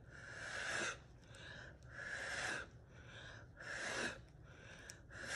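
A person blowing hard by mouth across wet acrylic pour paint to spread it into a bloom: four puffs of breath about a second and a half apart, the first the longest.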